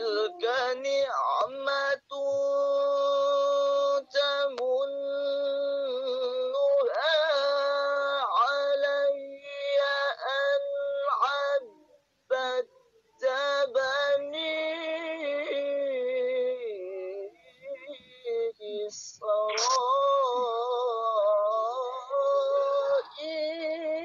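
A voice singing or chanting in long held notes that slide up and down in pitch, in phrases broken by short pauses every second or two, heard over a video call.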